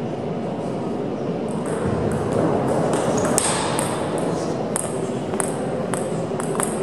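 Table tennis ball clicking sharply off paddles and the table in a quick doubles rally. After the rally there are a few single ball bounces about half a second apart. Hall murmur and distant voices run underneath.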